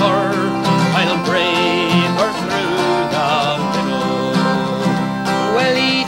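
A slow folk ballad: a male voice sings with a wavering vibrato over plucked acoustic string accompaniment.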